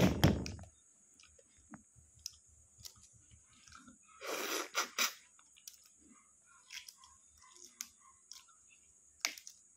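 Close-up mouth sounds of eating balut: soft chewing and smacking, a louder wet slurp about four seconds in as the egg is sucked at the mouth, then light clicks and crackles of eggshell being picked off toward the end.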